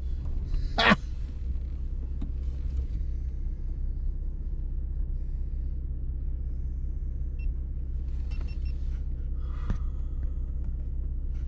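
Off-road vehicle driving along a dirt trail: a steady low rumble of engine and tyres, heard from the driver's seat. A brief sharp noise comes about a second in.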